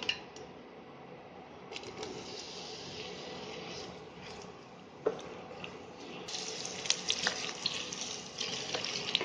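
Sliced onions sizzling in hot oil in a stainless steel pan, with a wooden spatula clicking and scraping against the pan as they are stirred. The sizzle starts about two seconds in and grows louder a little after halfway.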